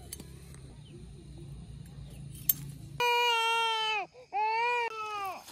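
A baby crying: two loud wails about three seconds in, the first about a second long, the second shorter and falling in pitch at its end.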